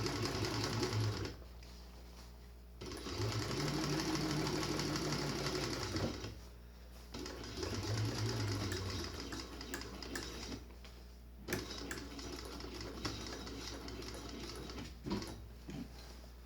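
Walking-foot sewing machine stitching nylon webbing in three runs, each speeding up and slowing down. The runs are separated by pauses with a few sharp clicks.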